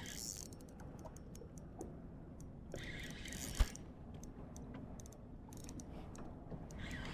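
Fishing reel drag buzzing in two short runs as a hooked walleye pulls line, one at the start and one about three seconds in, between scattered light clicks. A single thump sounds about three and a half seconds in.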